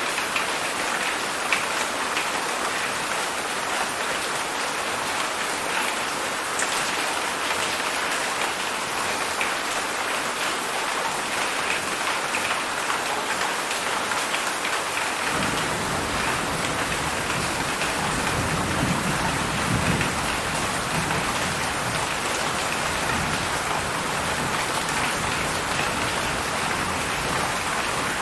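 Heavy rain falling steadily, a dense even hiss of drops. About halfway through, a low rumble of thunder comes in and swells briefly a few seconds later.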